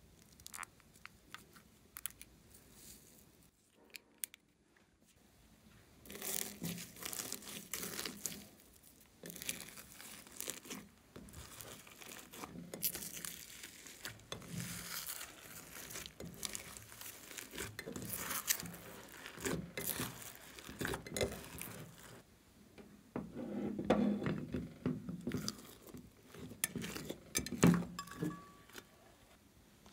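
Hands kneading and mixing thick slime packed with foam beads and glitter in a glass dish: sticky squishing with dense crackling and popping. It starts after a few quiet seconds with only light clicks, and grows fuller and louder near the end as the slime is pulled and folded.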